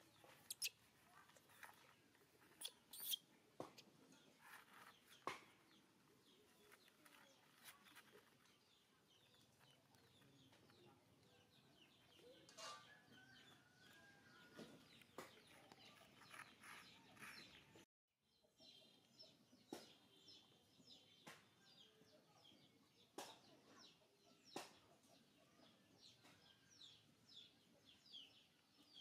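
Faint background of short bird-like chirps and clucking calls, with scattered sharp clicks; quiet overall.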